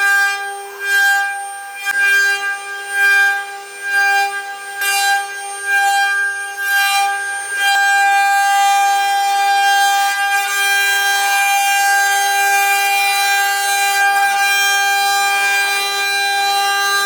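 CNC machine spindle running with a steady high-pitched whine. For the first several seconds it pulses roughly once a second, then it runs continuously with a harsher hiss of cutting added on top.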